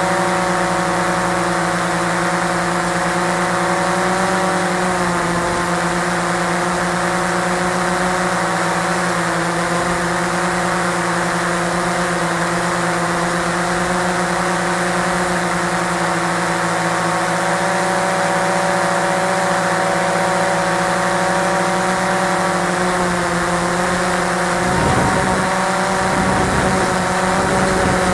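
Cheerson CX-20 quadcopter's brushless motors and propellers whining steadily in flight, heard from its own onboard camera. The pitch shifts slightly about five seconds in, and a low rumbling joins near the end.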